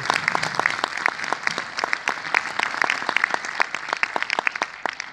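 Audience applauding, a dense run of hand claps that thins out and grows quieter near the end.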